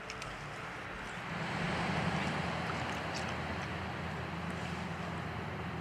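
Steady rush of river water running over rocks, swelling a little about a second in, with a faint low steady hum underneath.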